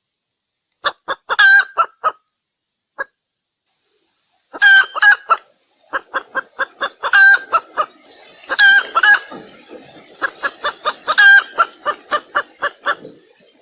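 Female red junglefowl (Sumatran wild hen) clucking: short quick clucks in bursts, then a long run of about three clucks a second with a few louder, drawn-out notes among them. This is the hen's call that trappers use as a lure for wild junglefowl.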